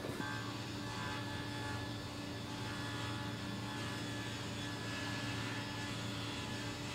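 Steady machine hum with a few held tones over a low rumble: background drone of workshop machinery or ventilation.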